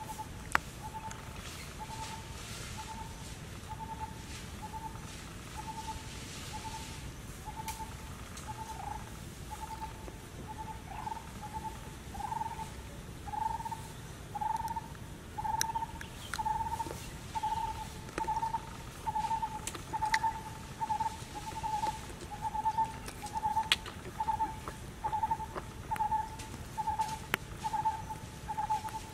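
A bird calling one short hooting note over and over, steadily at a little over one a second, louder from about halfway through. A few faint clicks sound now and then.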